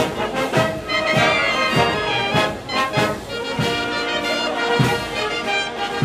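Brass band playing dance music, with sustained horn chords over a steady beat of about one and a half strikes a second.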